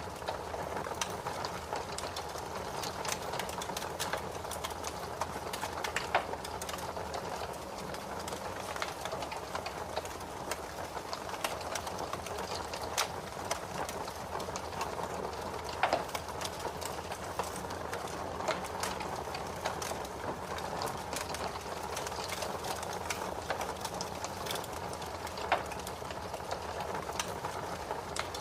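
Fire in a fireplace crackling steadily, a dense patter of small snaps over a soft hiss, with a few louder pops, the loudest about sixteen seconds in.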